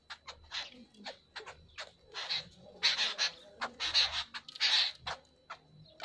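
Birds calling in short, harsh, high bursts with sharp ticks between, busiest and loudest in the middle.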